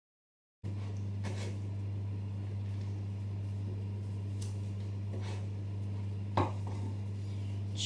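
A spatula folding thick brownie batter in a glass mixing bowl, with occasional scrapes and light knocks against the glass, the sharpest about six seconds in. Under it runs a steady low electrical hum that cuts in about half a second in.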